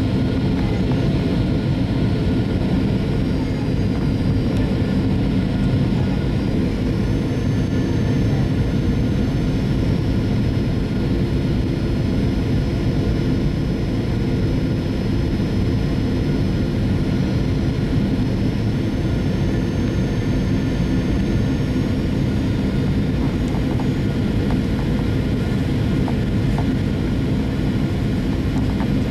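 Aircraft cabin noise during the landing approach: a steady low roar of engines and airflow. A faint high whine shifts in pitch a few times.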